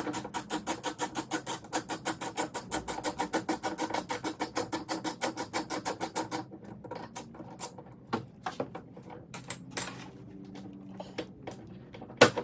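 Hand ratchet with a 10mm socket clicking rapidly and evenly, about seven clicks a second, backing out a bolt that holds the outside door handle; it stops about six seconds in and is followed by scattered small clicks and knocks of metal parts, with one louder knock near the end.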